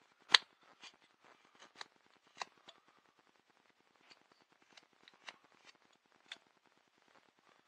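Carving knife slicing shavings off a small wooden paddle: a series of short, crisp cuts at an uneven pace, the first about half a second in the loudest.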